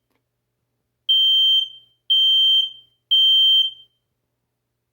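Household smoke alarm sounding on test: after a short pause, a group of three high-pitched beeps about a second apart, the temporal-three pattern of the smoke evacuation signal.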